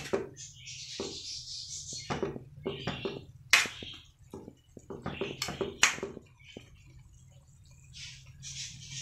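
A spatula stirring and tossing bean sprouts and diced sweet potato in a wok, with irregular scrapes and knocks against the pan and short bursts of hiss; the sharpest knocks come about three and a half and six seconds in. A steady low hum runs underneath.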